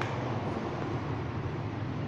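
Granite-cutting machine running with a steady low hum and an even rush of noise over it.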